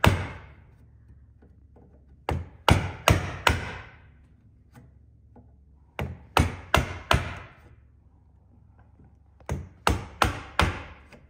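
Mortise chisel driven into timber with a mallet, chopping out a through mortise halfway in from the back face. One sharp blow at the start, then three runs of four sharp blows a little under half a second apart, with a few seconds' pause between runs.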